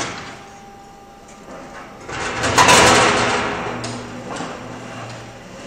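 Steel drum rolled along a metal roller conveyor into place under a drum filling machine: a rumbling, rattling roll that swells about two seconds in, peaks sharply and fades over the next two seconds.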